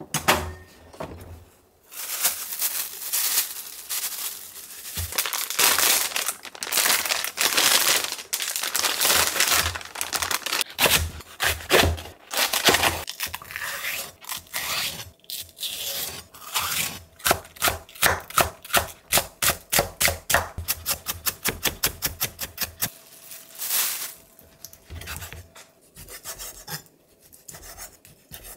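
Chef's knife cutting on a wooden cutting board, slicing and scraping through green onion and then octopus. The middle holds a long run of quick, even chops that speed up to about five a second. There is a single click near the start.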